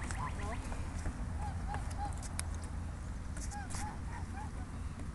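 Ducks and geese calling: short arched honks and quacks in runs of three or four, over a steady low rumble.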